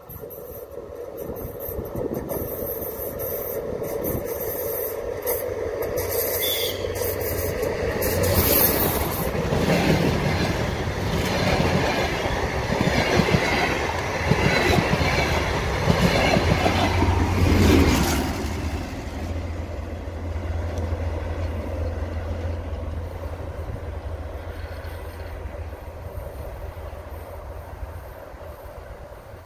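DR1AM diesel multiple unit approaching and passing close by at speed: its diesel engine drone rises, and its wheels clatter over the rail joints, loudest from about 9 to 18 seconds in. After that it falls to a lower, steadier rumble from a train farther off.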